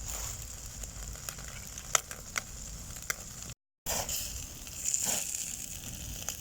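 Bone-in chicken sizzling on a grill over charcoal, with a steady hiss and a few sharp pops about two to three seconds in. The sound drops out briefly just past the middle.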